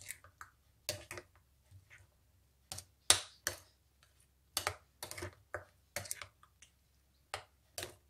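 A spoon stirring a thick coconut-milk and rice-flour mixture in a bowl, clicking and knocking against the bowl's side in irregular strokes, the loudest about three seconds in.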